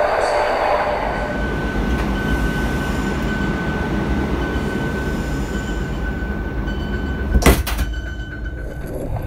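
TGV EuroDuplex exterior vestibule door closing. A hiss fades in the first second, then a steady high tone holds for several seconds, and a single sharp clunk follows about seven and a half seconds in as the door shuts. Under it runs the steady low rumble of the stationary train.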